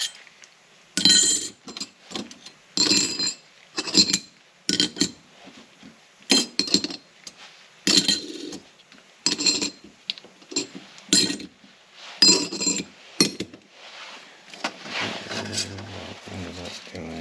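Steel clutch plates and friction discs from a Toyota Supra limited-slip differential clinking against one another as they are handled and sorted, a dozen or so sharp metallic clinks with a short ring. Near the end, a softer rustle of clothing close to the microphone.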